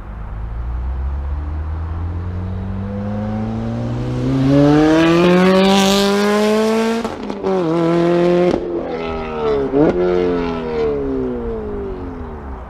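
Supercharged Lotus Exige S's four-cylinder engine, its custom valved exhaust wide open, driving by hard. The note climbs steadily as the car accelerates in and is loudest about five to seven seconds in. It then drops sharply with quick upshifts at about seven, eight and a half and ten seconds in, and falls away as the car leaves.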